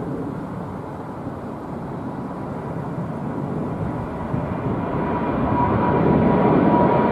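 Twin-engine Boeing 787-9 Dreamliner climbing out after takeoff, its jet engines a steady rumbling roar that grows louder as it approaches overhead. A steady high engine whine comes in over the roar during the second half.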